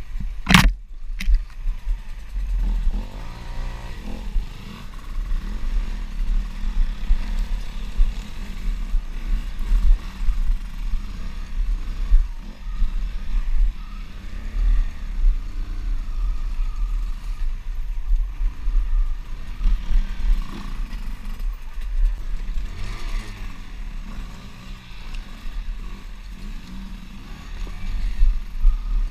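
An off-road motorcycle engine runs while riding a rough dirt trail, its pitch rising and falling with the throttle under a heavy low rumble of buffeting on a helmet-mounted camera. There is a sharp knock about half a second in.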